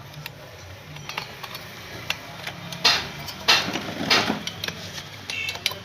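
Small metal clicks and knocks from a 52 cc brush cutter engine's parts being handled during assembly, with three louder scraping rasps around the middle.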